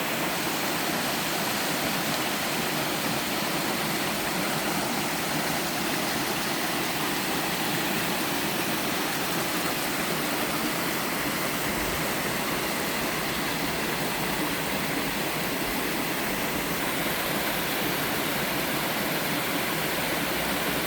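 Two-tier waterfall in a mountain stream: water pouring and splashing in a steady, unbroken rush.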